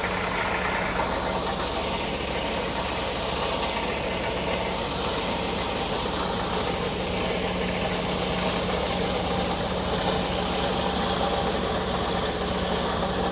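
Combine harvester running steadily, a constant engine hum with an even hiss over it.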